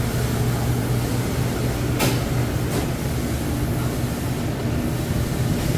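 Steady hum of commercial kitchen fans and ventilation, with a low droning tone under an even hiss. Two short clicks come about two seconds in and again a moment later.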